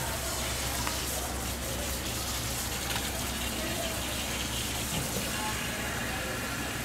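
Steady rushing background noise, like a running tap, over a low hum, with faint voices. A faint click or two comes from the knife, but its slicing through the tuna is not distinct.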